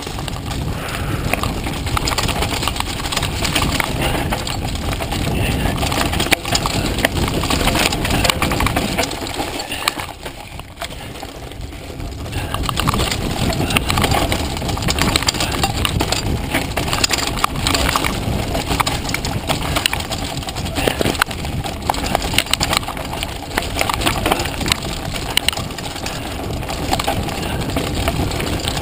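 Mountain bike clattering at speed down a rough dirt trail, heard from a GoPro on the rider: tyre and trail noise with wind rushing over the microphone and many sharp knocks as the bike hits bumps. It goes quieter for a couple of seconds about ten seconds in, then picks up again.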